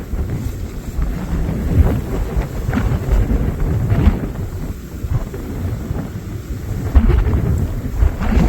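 Strong gusty wind buffeting the microphone in a rainstorm, a heavy uneven rumble that swells and drops in gusts, with rain underneath.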